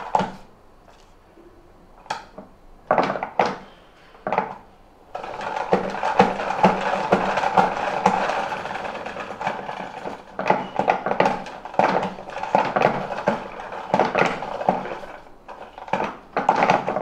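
A72 spin mop spinning in its bucket in rinsing mode, flinging water off the mop cloth. First come a few separate clicks and knocks, then from about five seconds in a continuous clattering whirr full of sharp clicks, which breaks up near the end.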